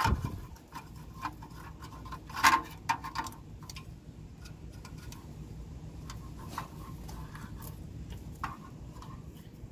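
Pliers clicking and knocking as they grip and twist a spark plug wire boot to break it free, with one sharp clank about two and a half seconds in. Fainter scattered ticks follow over a steady low hum.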